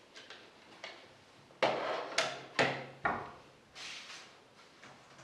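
Plastic VHS cassette being handled and loaded into a player: a quick run of four clunks and knocks about a second and a half in, followed by a short rustle.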